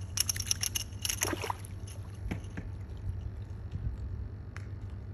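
Dolphin splashing at the water's surface, with a cluster of sharp splashes in the first second and a half, over a steady low hum.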